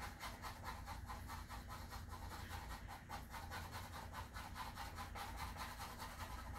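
Faint scratching of a pencil on paper in quick, evenly repeated strokes, about seven a second.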